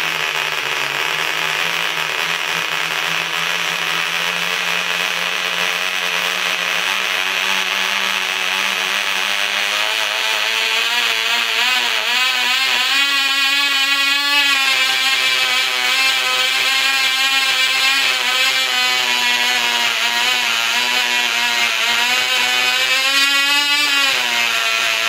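Tiny G-Mark 03 model engine running at high speed with a steady buzzing whine. Its pitch climbs partway through and wavers. Near the end it surges up and down because its fuel pipe has come off.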